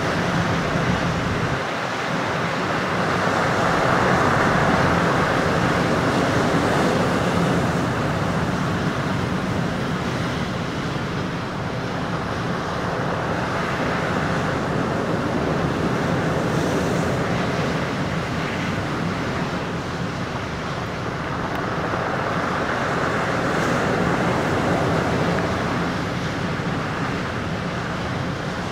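Heavy storm surf breaking over a rocky shoreline: a continuous rush of crashing waves that swells louder a few seconds in and again near the end.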